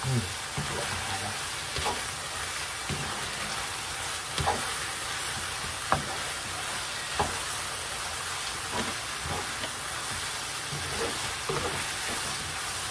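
Pasta and diced ham sizzling in a non-stick frying pan as a wooden spatula stirs and tosses it, with a short knock of the spatula against the pan every second or two.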